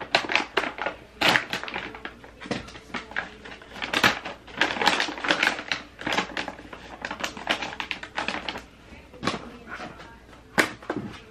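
Cookie package wrapper crinkling and crackling as it is opened and handled, a dense irregular run of sharp crackles with one louder snap near the end.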